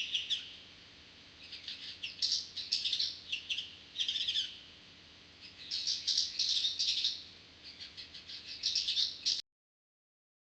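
Eurasian tree sparrow chirping in about five quick bouts of short, high chirps with brief pauses between them. The recording cuts off suddenly near the end.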